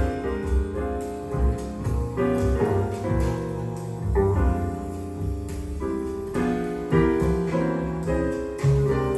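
A recording of jazz piano with deep bass notes underneath, played back through Thiel CS 2.2 loudspeakers.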